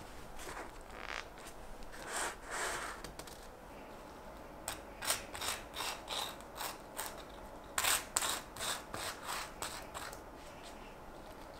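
Spoon spreading mayonnaise over toasted white bread: a run of short, dry scraping strokes, coming thick and fast in the second half and stopping near the end.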